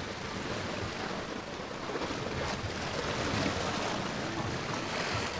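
Small sea waves washing and splashing against shoreline rocks, a steady rushing of water.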